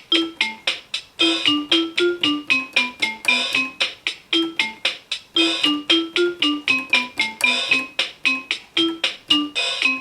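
Anpanman toy electronic keyboard playing a bouncy pop melody in short, quickly decaying notes that fall in repeated runs, over a steady clicking beat from its built-in rhythm box.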